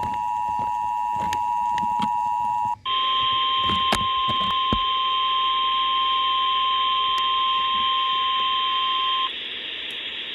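Emergency Alert System tones: the two-note attention signal sounds steadily for about three seconds and cuts off. After a brief gap comes the long single-pitch 1050 Hz Weather Radio warning alarm tone, which stops about a second before the end and leaves a faint hiss of radio static.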